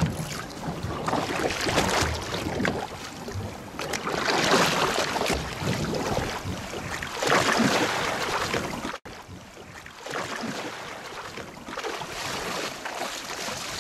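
Seawater splashing and sloshing against a boat's hull as a large fish is held in the water alongside, rising in surges every two or three seconds, with wind on the microphone. The sound drops off sharply about nine seconds in and stays quieter afterwards.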